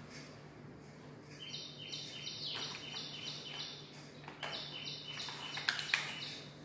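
Toy police car's electronic siren beeping in a high two-tone pattern, flipping between two pitches about four times a second, in two runs with a short break between them. Sharp clicks of hard plastic toys being handled, the loudest two near the end.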